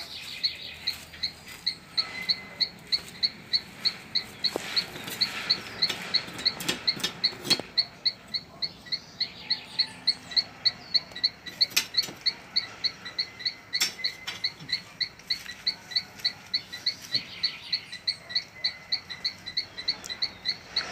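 An insect chirping in a steady high-pitched rhythm, about four chirps a second. A few scattered knocks and taps come now and then.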